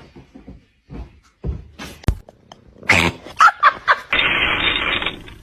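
A household pet's short cries, after a few knocks and thumps, followed near the end by about a second of dense hissing noise.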